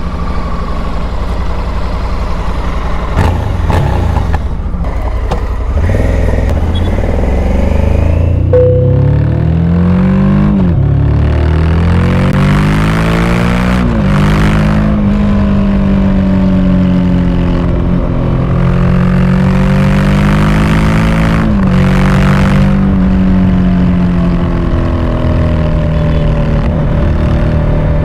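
Honda Africa Twin Adventure Sports' 1084 cc parallel-twin engine running, then accelerating hard through the gears. The pitch climbs and drops sharply at each upshift, about three times, before settling into a steady cruise at highway speed. Wind noise rushes over the rider's microphone in gusts at speed.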